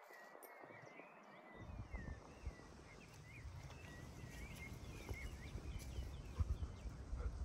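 Birds singing in short, quick, wavering chirps. From about a second and a half in, a rumble of wind buffeting the microphone sets in and grows louder than the birds.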